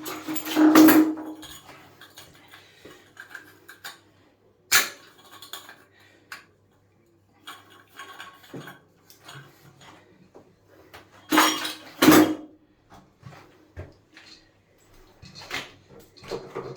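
Hard parts and tools clinking and knocking as a shower hose wall outlet is fitted. There is a loud clatter about a second in, another around five seconds, and a double clatter near twelve seconds, with small clicks between.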